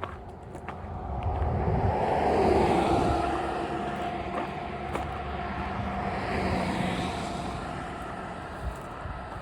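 Vehicle traffic passing on a road: a steady engine and tyre noise that swells to a peak about two and a half seconds in, rises again around six and a half seconds, then fades.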